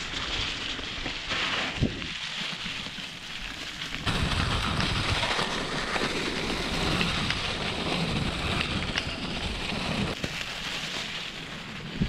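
Mountain bike rolling downhill over a leaf-covered forest trail: a steady crackle of tyres on dry leaves and dirt, with low rumbling from the bumps and a few sharp clicks and knocks from the bike.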